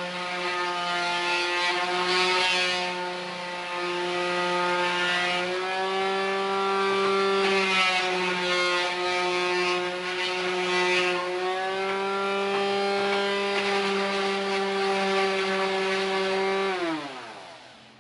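Electric orbital finishing sander running on a wooden board: a steady buzzing motor hum with the pad's scratching on the wood, shifting slightly in pitch as it is pushed around. Near the end it is switched off and the motor winds down in falling pitch.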